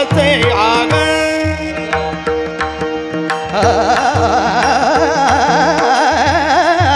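Marathi devotional music: a sung line bending in pitch at the start, then a wavering melodic passage over steady drone notes, with repeated mridang strokes and sharp metallic clicks keeping the beat.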